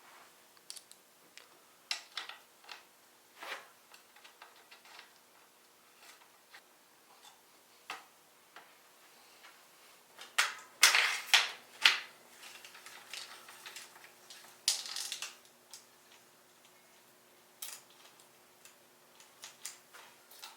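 Scattered metallic clicks and clinks of bicycle drivetrain parts and hand tools being handled and fitted, with a louder patch of clattering around the middle.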